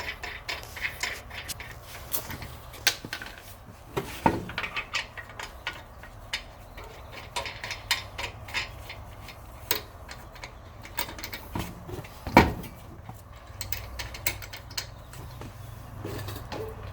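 Scattered light metal clicks and clinks as lug nuts are threaded onto the wheel studs by hand, with one louder metal knock about twelve seconds in.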